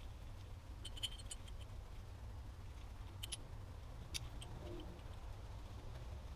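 A few light metallic clicks and clinks from the steel balls, cage and inner race of a greased ball-type CV joint being handled and fitted together by gloved hands, over a low steady hum.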